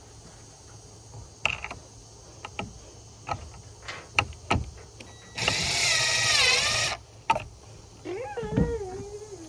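Ridgid cordless impact driver running in one burst of about a second and a half, driving a screw through a PVC rod holder into a plastic milk crate; its pitch sags just before it stops as the screw seats. A few light clicks and knocks of the bit and parts being handled come before and after.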